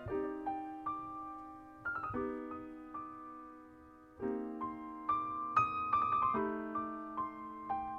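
Piano playing slow, soft chords, each struck and left to ring and fade before the next comes in every second or two.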